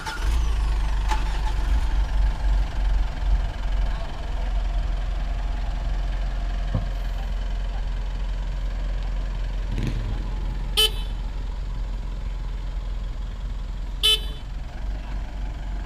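Mitsubishi Triton pickup's engine starting with the clutch pressed and settling into a steady low idle. Two short horn toots sound about eleven and fourteen seconds in.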